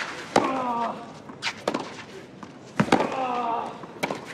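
Tennis rally sound effects: sharp racket-on-ball hits about a second apart, two of them each followed by a player's short grunt that falls in pitch.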